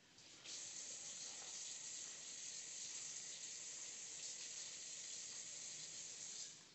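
Tap water running steadily, turned on about half a second in and shut off suddenly near the end, as a finger covered in hot chili sauce is rinsed under it.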